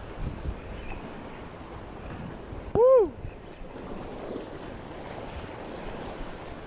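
Wind on the microphone over sea water lapping. About three seconds in comes one short, loud tone that rises and falls in pitch.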